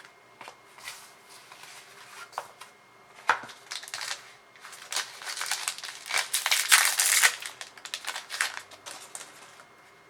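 Foil wrapper of a One Piece Card Game booster pack crinkling as it is handled and opened. A few scattered crackles and one sharp snap at first, then a dense run of crinkling about five to eight seconds in, loudest near seven seconds, dying away near the end.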